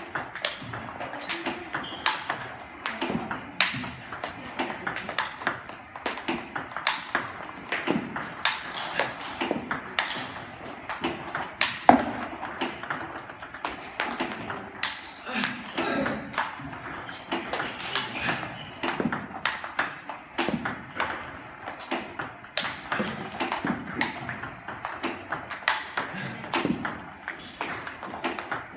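Table tennis ball clicking in a quick, steady rhythm as a player returns backspin balls fed by a table tennis robot: bounces on the table alternating with paddle hits.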